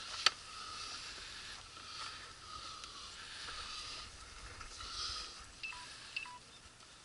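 Handling noise from an outboard motor's transom clamps being tightened on an inflatable boat. There is a sharp click about a quarter second in, then faint rustling, and two small ringing clicks near the end.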